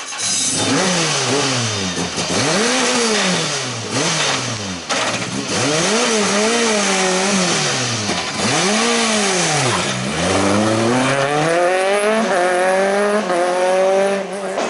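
Peugeot 206 rally car's engine revved hard up and down several times in a row. From about ten seconds in it accelerates away, its pitch climbing in steps through the gears.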